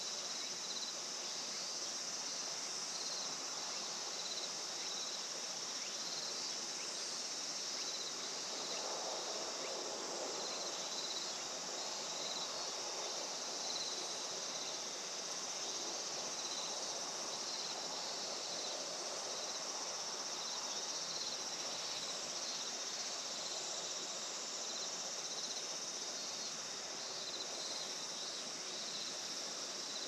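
Evening insect chorus from a rice paddy: a steady high shrill of crickets or similar insects, with a pulsing chirp repeating at an even pace underneath.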